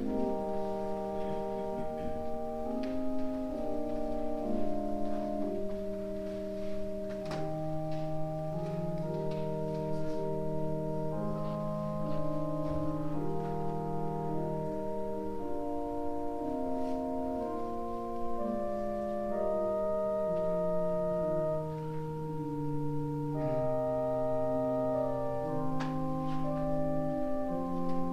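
Organ playing a slow piece of held chords. The notes sustain evenly without fading and change every second or two.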